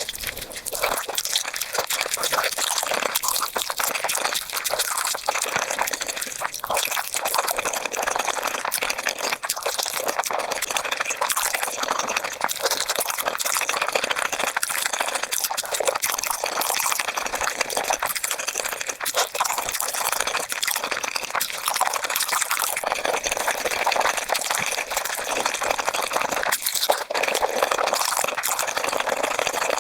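Close-miked eating sounds played at five times speed: wet, sticky chewing and smacking of gelatinous beef feet. They run together into a dense, continuous patter of tiny wet clicks.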